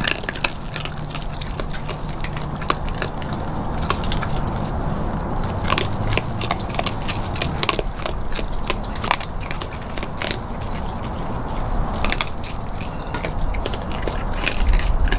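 Several raccoons crunching and chewing scattered dry feed on wooden boards: a constant run of irregular crunches and sharp clicks, very noisy.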